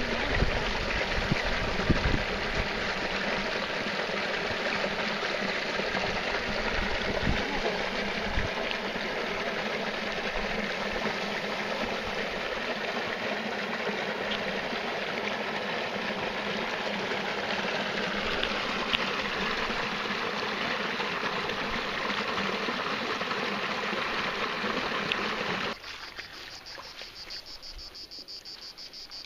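Stream water running over rocks, a steady rush. About 26 seconds in it cuts suddenly to a much quieter scene with crickets chirping in an even, fast rhythm.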